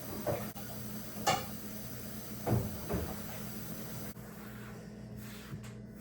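Kitchen clatter from dishes and cupboard doors being handled during cleanup: four sharp knocks within the first three seconds, over a steady low hum.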